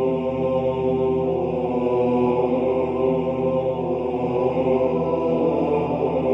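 Soundtrack music: a slow vocal chant in the style of Gregorian chant, voices holding long sustained notes over a steady drone.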